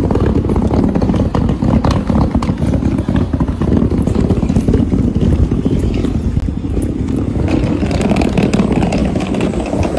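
Hard-shell suitcase wheels rolling over brick paving: a loud, steady rumbling rattle.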